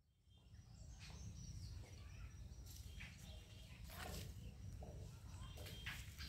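Faint outdoor ambience: birds chirping high and thin over a low rumble of wind on the microphone, with soft rustles about once a second.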